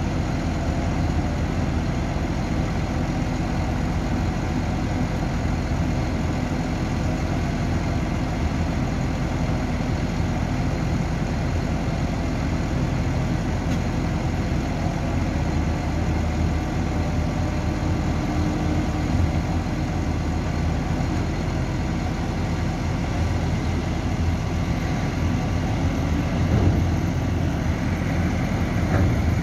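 Several large farm tractors' diesel engines running steadily at idle, one of them a John Deere 9520R.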